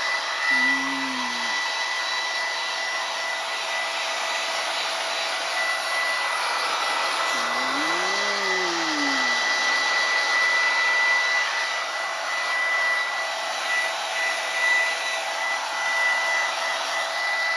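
Hand-held hair dryer blowing steadily with a constant high whine while drying a German Shepherd's coat. Two short pitched sounds rise over it, one about a second in and a rise-and-fall near eight seconds in.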